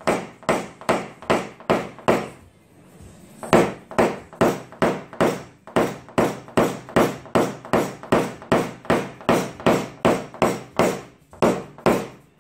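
Knockdown punch struck with a hammer on a steel car door skin in paintless dent repair, tapping down raised metal along a crease: sharp, evenly paced taps about two and a half a second, with a short pause about two seconds in.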